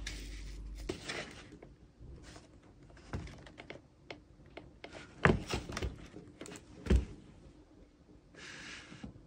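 A few strokes of a horsehair brush on a leather boot, then knocks and thumps as a pair of leather boots with rubber commando soles are picked up, turned over and set down on the table, the loudest thump about seven seconds in.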